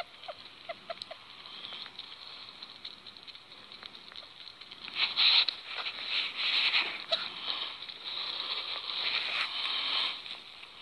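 Sugar gliders eating close to the microphone: small wet clicks of chewing and licking, then a louder stretch of scratchy rustling and chewing from about five seconds in.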